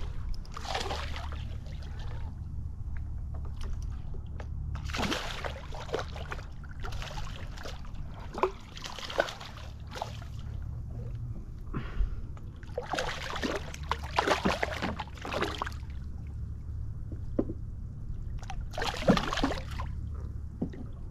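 Water sloshing and splashing against a small skiff in short, irregular bursts, over a steady low hum.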